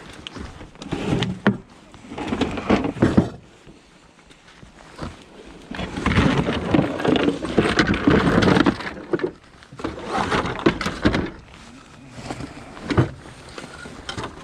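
Irregular clattering, knocking and rustling of discarded household junk being handled and moved, in several bursts with short quieter gaps.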